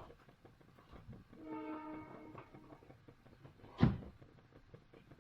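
A steady horn-like tone sounds for about a second, followed a couple of seconds later by a single sharp knock, like a utensil or pot set down in the kitchen.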